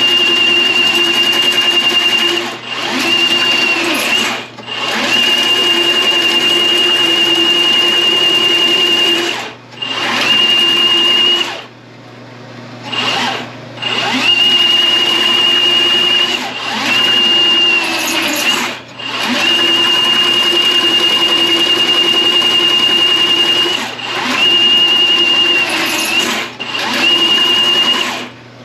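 Powered drain snake motor spinning its cable down a clogged sewer line. It runs in short spells, stopping and restarting about ten times, with a steady high whine that sags briefly as it lets off.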